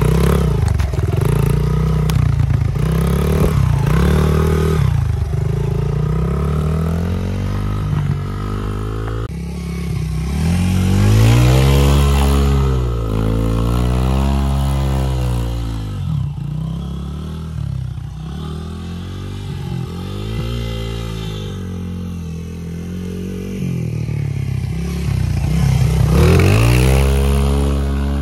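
Small dirt bike engine revving up and down over and over as the rear wheel spins and churns through thick mud. There is a long, strong rev near the middle and another near the end.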